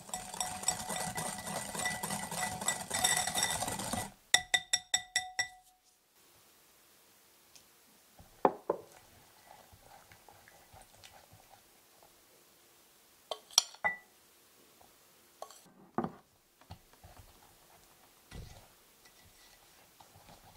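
Metal wire whisk beating a creamed butter mixture in a glass bowl, its wires scraping and ringing against the glass. About four seconds in comes a quick run of about eight sharp taps of the whisk on the bowl. Then comes softer stirring with a spatula, broken by a few sharp clinks of glass.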